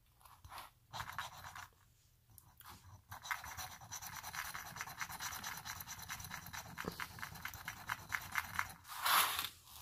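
A gold-plated chain rubbed quickly back and forth on a gold-testing stone, a dense run of fast scratching strokes from about three seconds in until near the end, with a few lighter scrapes before it; it lays down a streak of metal for an acid test of its gold content. A short, louder rustle comes near the end.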